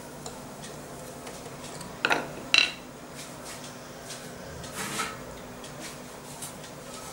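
Kitchen utensils clinking against a metal plate: two sharp clinks about half a second apart a couple of seconds in, the second with a short high metallic ring, then a softer knock about five seconds in, over a faint steady hum.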